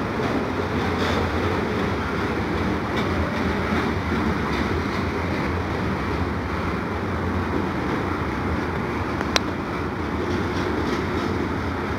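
Double-stack intermodal well cars rolling past on the track, a steady rumble of wheels on rail. A single sharp click about nine seconds in.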